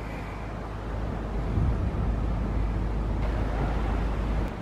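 Wind buffeting the microphone, a low rumble that grows stronger about a second and a half in and drops off sharply near the end.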